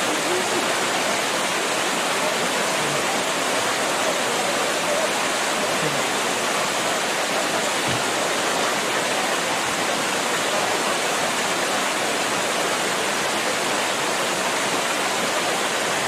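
Waterfall pouring onto rocks and a shallow pool, a steady, unbroken rush of falling water.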